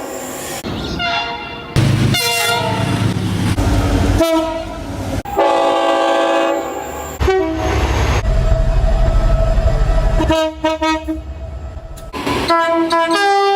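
Train horns sounding in about six short clips cut one after another. Each horn is a chord of several steady notes held for one to a few seconds, with a low rumble of passing trains under some clips.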